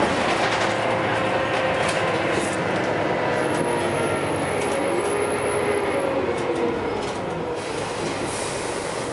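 Scania L94UB bus heard from inside the passenger saloon while under way: its five-cylinder diesel engine running hard with the interior panels and fittings rattling, and a whine, likely from the ZF automatic gearbox, that shifts in pitch around the middle. The noise eases a little near the end.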